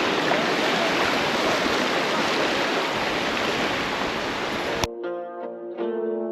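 A steady rush of surf and wind. Near the end it cuts off suddenly and background music of plucked-string notes begins.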